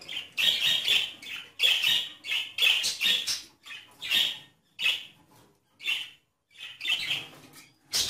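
Caged budgerigars calling: short chirps and squawks one after another, several a second, pausing briefly a little past halfway.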